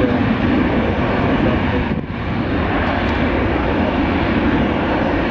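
Airbus A321 jet engines at departure thrust: a loud, steady rushing noise with a heavy low end, briefly dipping about two seconds in.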